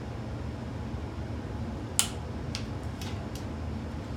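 Hand tools clicking: one sharp metallic click about two seconds in, then three lighter clicks, over a steady low hum.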